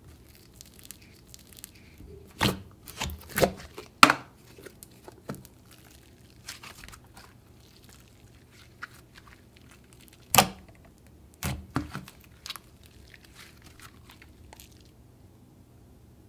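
Thick and glossy slime being worked by hand, with a clay egg mixed in, then stretched and folded, giving sticky crackles and several sharp pops; the loudest pops come about four seconds in and again about ten seconds in.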